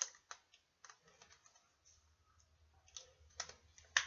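A handful of sharp plastic clicks and taps with a quiet stretch in the middle, loudest at the start and near the end: a Nerf Rebelle toy blaster being handled as a foam dart is pushed into it.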